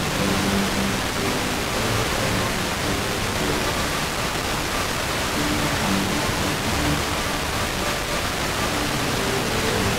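Loud steady FM static hiss from a receiver tuned to a very weak, aurora-propagated signal on 103.7 MHz. Faint snatches of classical music from ABC Classic FM come and go under the noise: the station is barely above the noise floor.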